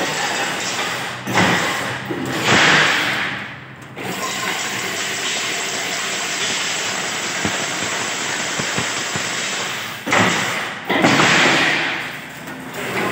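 Automatic chain-link fence mesh machine running: a steady mechanical clatter and hum, with two louder rushing surges of a couple of seconds each, about a second in and again about ten seconds in.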